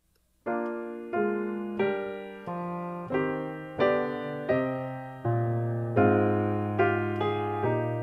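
Piano playing slow, gently struck chords, each one left to ring and fade, starting about half a second in after a brief silence: the introduction to a sung piece.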